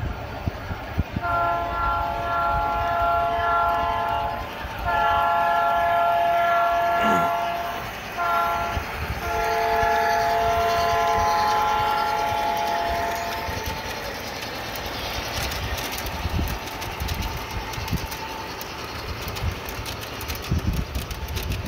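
G scale model train's electronic multi-tone diesel horn, sounded long, long, short, long: the grade-crossing signal. Under it and after it, the freight cars click and rumble over the rail joints as they pass.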